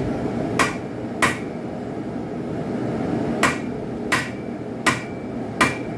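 Hand hammer striking a railroad spike on an anvil while forging a knife blade: two blows about half a second apart, then after a pause four more at an even pace, some with a short metallic ring. A steady rushing noise runs underneath.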